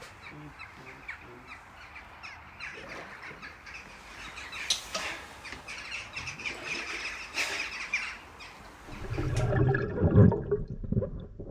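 A large flock of birds calling together, many short overlapping caws and chatter. About nine seconds in, a louder low rumbling noise from underwater takes over.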